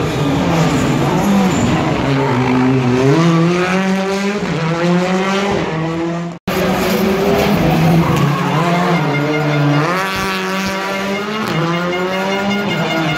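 Rally car engine revving hard, its pitch climbing and dropping repeatedly as it accelerates through the gears, with tyres squealing and skidding on tarmac. The sound cuts out briefly about six seconds in, then a second run of revving and tyre squeal follows.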